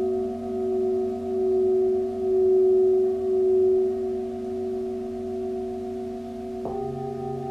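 Singing bowls ringing in a long sustained tone that swells and fades about once a second. Near the end another bowl is struck softly, adding a deeper tone.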